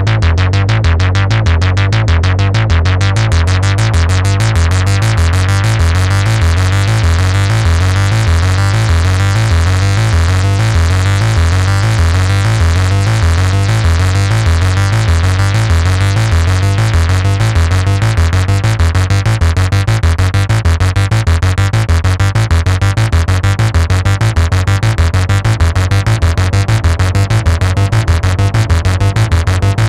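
Behringer Model 15 analog synthesizer playing a fast, repeating sequenced bass line. About three seconds in, the filter opens and the tone turns markedly brighter.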